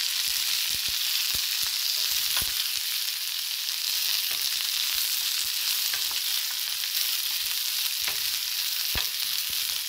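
Sliced onions, curry leaves and dry red chillies sizzling steadily in hot oil in a small stainless steel pan while a wooden spoon stirs them, with scattered small clicks. This is the tempering (thalippu) for sambar, the onions being sautéed.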